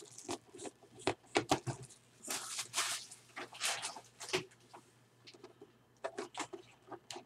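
Foil-wrapped trading card packs and their cardboard hobby box being handled: light, irregular rustling, crinkling and small taps, with short gaps between them.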